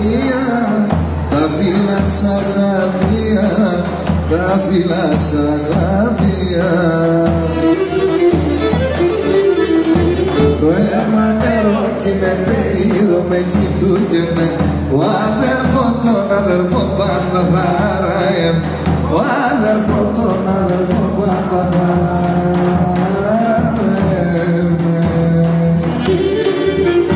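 A man singing a Pontian folk song while playing the Pontic lyra (kemençe), the bowed lyra weaving around the voice over a steady low beat.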